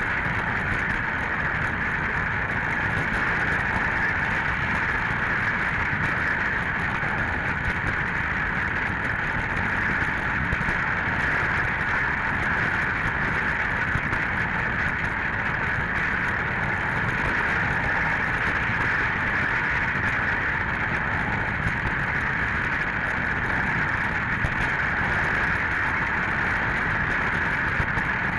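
Toy electric train's small motor and wheels running steadily on plastic track, heard up close from a camera riding on the train: an even whirring with a rough rattle underneath.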